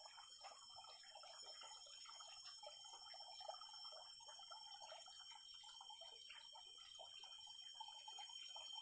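Faint tropical forest ambience: a steady high insect drone with soft chirping animal calls beneath it, and a single small click about three and a half seconds in.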